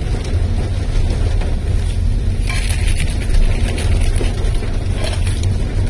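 Inside a car driving in heavy rain: a steady low rumble of the car on the road, with the hiss and patter of rain on the roof and windshield, swelling into a louder hiss about two and a half seconds in for about a second.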